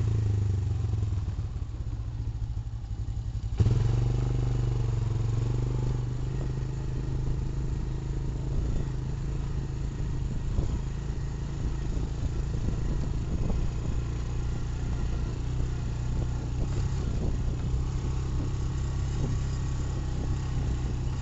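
ATV engine running as the quad rides along a rutted dirt track, with rattling and knocks as it goes over bumps. The engine drops back for a couple of seconds, then picks up sharply about three and a half seconds in and keeps running steadily.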